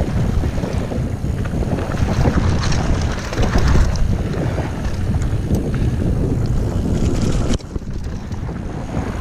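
Wind buffeting the camera microphone over the rumble of mountain bike tyres rolling on a hard-packed gravel dirt trail, with scattered clicks and rattles from the bike. The rumble drops sharply about seven and a half seconds in, then builds again.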